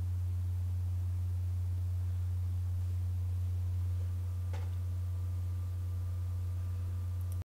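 A steady, loud low hum, one deep unchanging tone, with a faint click about four and a half seconds in; it cuts off abruptly at the end.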